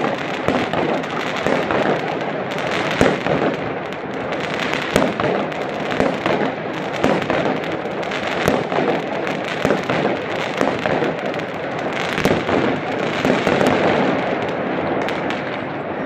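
Many fireworks and firecrackers going off across a city at once: a dense, unbroken run of overlapping bangs and crackles, with some louder single pops standing out.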